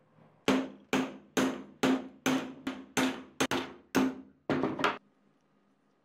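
A hammer striking metal fan parts, about a dozen blows at a little over two a second, each with a short metallic ring.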